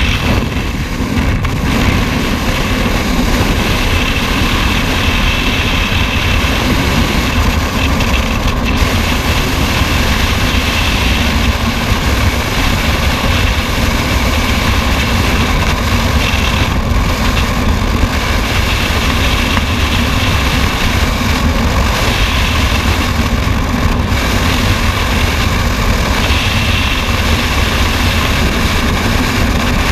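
Freefall wind rushing past the camera's microphone, a loud, steady, unbroken noise from a skydiver falling at terminal speed.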